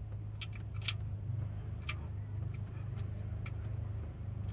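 Hand socket ratchet clicking as it is worked in short strokes, a sharp tick about once a second, over a steady low hum.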